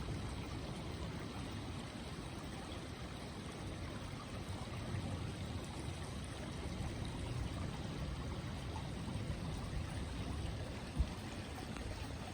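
Steady rush of a flowing stream, with one brief low thump about eleven seconds in.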